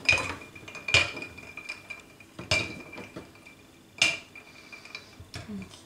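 Ice cubes dropped one at a time into a glass pitcher of water. Each lands with a sharp clink and a short glassy ring, four clinks over about four seconds.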